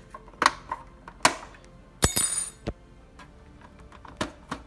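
Plastic clips of an Xbox 360 E's vent cover snapping loose as it is pried off the case: a string of sharp clicks and snaps, the loudest about two seconds in with a brief rattle.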